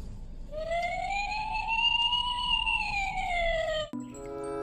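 A single slow siren wail: one tone that rises and then falls again over about three seconds.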